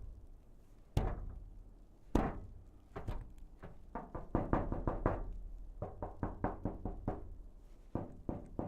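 Blows and knocks on a metal booth: a few single heavy bangs about a second apart, then quicker runs of knocks, several a second, each with a short ringing tail.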